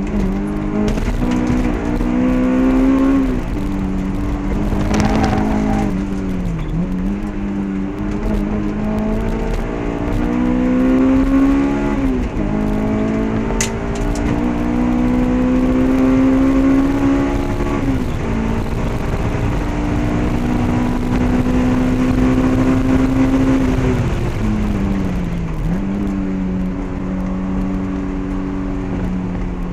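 Honda S2000 AP1's 2.0-litre VTEC four-cylinder engine, heard from inside the cabin, with a test pipe, Comptech cat-back exhaust and K&N intake, driven hard around a road course. Its pitch climbs under throttle and drops sharply several times through the gear changes and corners. A sharp click comes about 14 seconds in.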